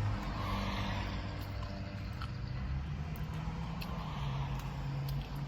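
Steady low motor-vehicle hum heard from inside a car, with a couple of soft swells like vehicles going past, the first near the start and the second about four seconds in.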